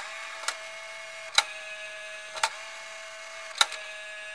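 The CD-changer mechanism motor and gear train of a Bose multi-disc CD player runs with a steady whine, broken by a few sharp clicks at uneven intervals. The gears are spinning without loading a disc, which the owner suspects may be a stripped gear.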